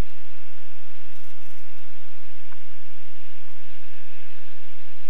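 Scheibe SF-25 Falke motor glider's engine and propeller running steadily in flight, heard inside the cockpit as a loud, even drone mixed with airflow noise.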